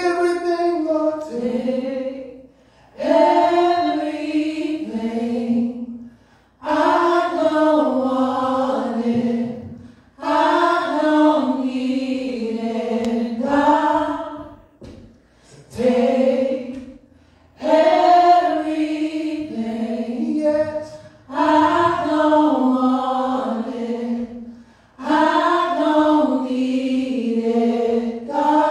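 Gospel worship team of men's and women's voices singing together into microphones, unaccompanied, in phrases a few seconds long with short breaks between.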